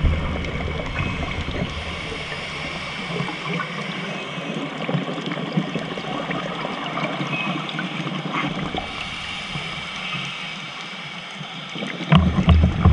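Scuba divers' exhaled regulator bubbles gurgling and rushing, heard underwater over a steady watery hiss, with a bubble rush at the start and a louder one near the end.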